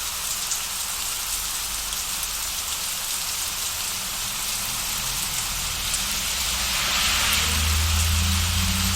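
Steady heavy rain hissing down. A low rumble of distant thunder builds up about halfway through and is loudest near the end.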